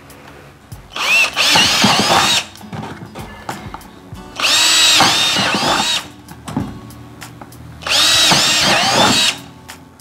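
Power drill boring three holes in turn through the side of a plastic bucket, each a burst of about a second and a half with a whine that rises and falls in pitch as the bit cuts through the plastic.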